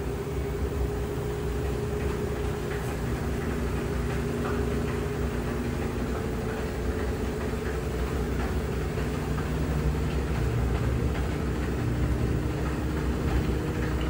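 LG washing machine running: a steady low hum with a faint constant whine.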